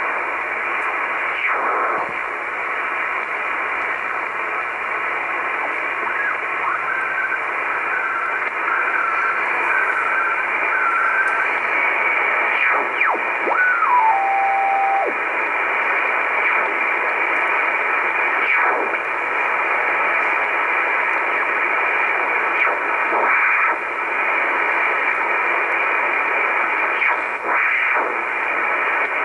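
Shortwave communications receiver in upper sideband being tuned across the 12 MHz utility band: a steady hiss of band static, with whistles sliding past as the dial crosses carriers. About fourteen seconds in, one tone steps down in pitch and holds for a second.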